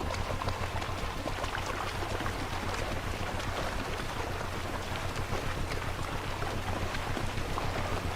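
River water splashing and running as lions wade across, a dense patter of small splashes over a steady low hum.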